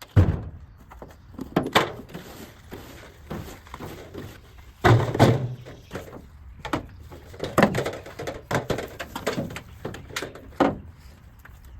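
Irregular knocks, clunks and rattles of loose junk being picked up and tossed out of a pickup truck's bed, about ten sharp thuds with scraping and rustling in between.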